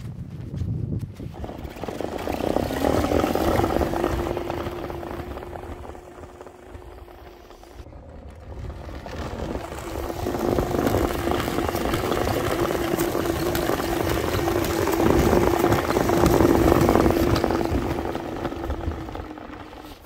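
Homemade snowmobile built from a child's 1000 W electric quad: a steady electric-drive whine over the noise of its track in the snow. It swells twice as the sled passes close, then fades as it drives away.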